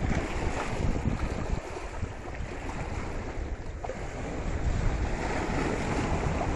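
Small sea waves washing and splashing over seaweed-covered shore rocks, with wind buffeting the microphone in a low, gusty rumble.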